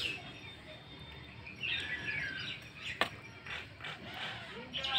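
Small pabda fish being cut and cleaned on a boti blade: soft scraping and clicking, with one sharp click about three seconds in.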